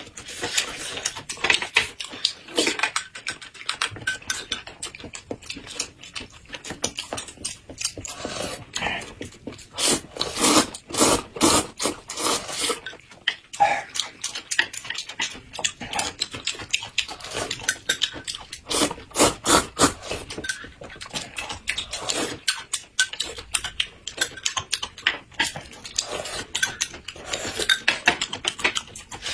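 Close-miked eating: hot and sour noodles slurped and chewed, and a cob of black corn bitten and chewed, in a dense, irregular run of slurps and chewing noises.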